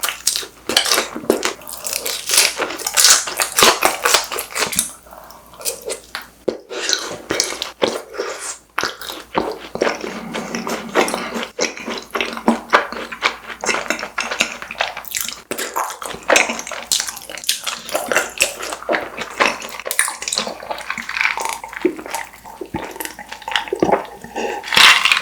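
Close-miked eating of fried snacks: crunchy bites and wet chewing with lip smacks, a dense run of crackling clicks.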